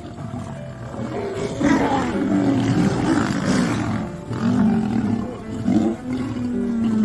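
Male lion roaring: a series of long, deep calls beginning about a second and a half in, ending with a long drawn-out call near the end.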